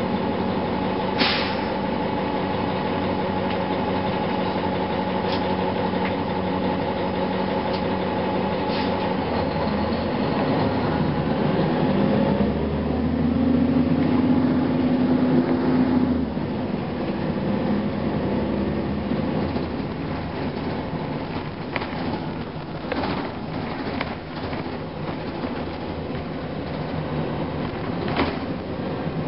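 Cummins ISM diesel engine of a 2004 Gillig Phantom transit bus, heard from inside the passenger cabin. It idles steadily, then revs up as the bus pulls away, growing to a loud, strained roar about halfway through. The roar drops off abruptly and settles into a rougher running sound, with a few sharp rattles and knocks.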